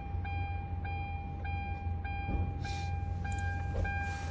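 Steady electronic warning tone with a regular pulse about every half second or so, over a low steady hum.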